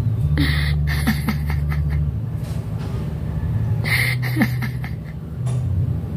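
A kitten clawing at and climbing the bars of a wire pet cage, giving short rattles and clicks about half a second in and again about four seconds in, over a steady low hum.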